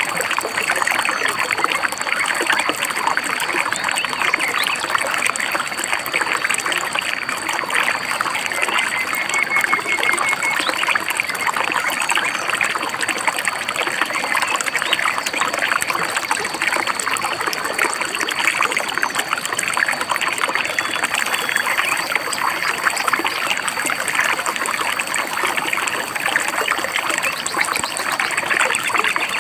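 Shallow stream babbling and trickling steadily over rocks, an unbroken rush of water.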